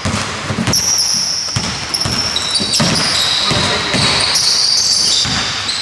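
Basketball being dribbled on an indoor court, a steady run of bounces about two a second, with sneakers squeaking on the floor over it.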